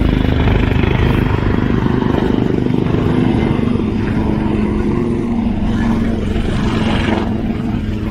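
Leonardo Wildcat HMA2 naval helicopters flying a low display pass: loud, steady rotor chop with a turbine whine whose pitch drifts slightly lower.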